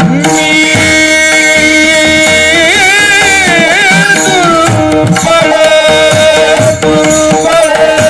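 Kirtan devotional music: tabla playing under steady held instrumental notes, with a singer's voice sliding through a long ornamented note about two and a half seconds in.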